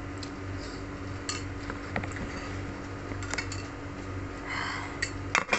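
A metal spoon clinking and scraping against a bowl during eating: a few scattered light clicks, with a couple of sharper ones near the end, over a steady low hum.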